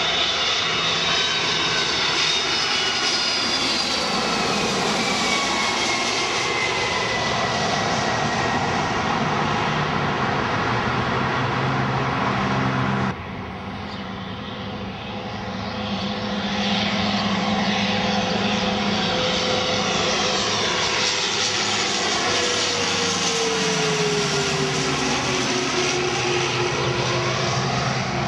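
A twin-engine jet airliner passes low on landing approach, its engine whine falling in pitch as it goes by. After a sudden cut about halfway through, a twin-engine turboprop airliner approaches, growing louder, and its propeller drone drops in pitch as it passes near the end.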